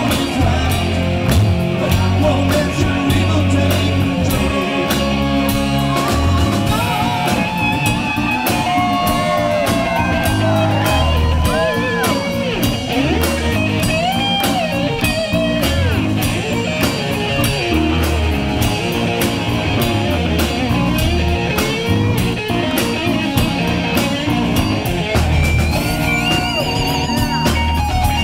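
A live rock band playing, with a lead electric guitar from a Les Paul-style guitar through Marshall amplifiers. The lead bends and wavers its notes over drums and bass, most plainly in the middle of the passage.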